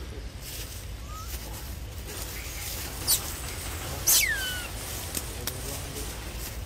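Two short, high-pitched squeals from a baby long-tailed macaque, each sliding sharply down in pitch. The second, about a second after the first, is louder and longer.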